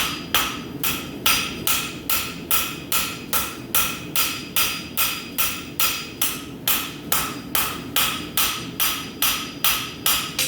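Blacksmith's rounding hammer striking hot steel bar stock on an anvil in a steady rhythm of a little over two blows a second, each blow leaving a short metallic ring, while drawing out the tip of a forged heart.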